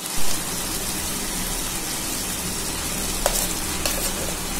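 Chicken pieces frying in oil in a kadai, a steady sizzle, with a couple of light clicks a little past three seconds in.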